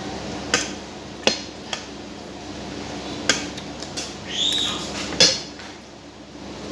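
Eating utensils clinking against dishware: about six sharp clinks spread irregularly over several seconds, with a short high squeak just before the loudest clink, a little past the middle.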